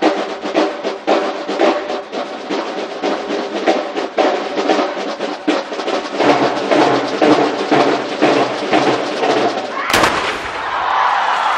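A large corps of marching snare drums playing a fast, driving rhythm in unison, ending with one sharp final stroke about ten seconds in. Crowd applause follows.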